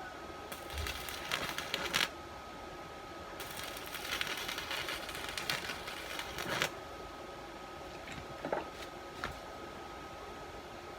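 Stick-welding arc from a Makita MM 300A inverter welder crackling in two runs, one of about a second and a half and a longer one of about three seconds, then two short crackles near the end. A faint steady high tone runs underneath.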